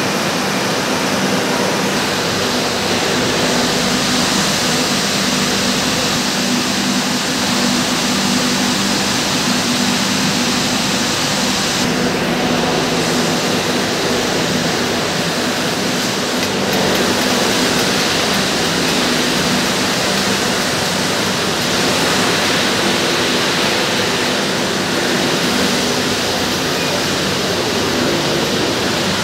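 Zinser simplex roving frame running at speed amid other spinning-mill machinery: a loud, steady rushing whir with a low hum underneath.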